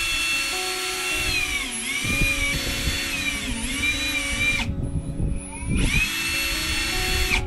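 Power drill running at speed, boring holes through the alloy bottom of an aluminium-hulled dinghy. Its whine dips in pitch twice as the bit bites, stops for about a second, then starts up again and cuts off at the end.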